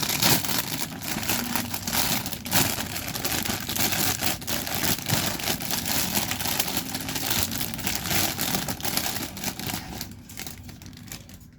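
Plastic bag of model-kit runners being opened and handled, crinkling and rustling in a busy run of crackles that dies down near the end.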